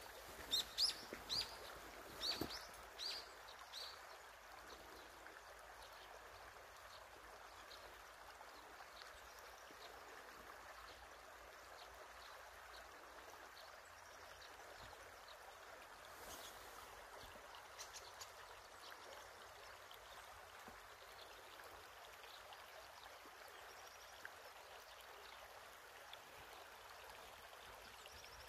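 Shallow stream trickling over stones, a faint steady sound. A bird chirps several times in the first few seconds, and briefly again about halfway through.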